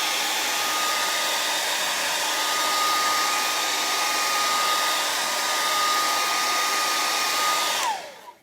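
Handheld hair dryer blowing steadily with a thin high whine, drying wet paint on a canvas. It is switched off near the end, the whine falling away as the motor spins down.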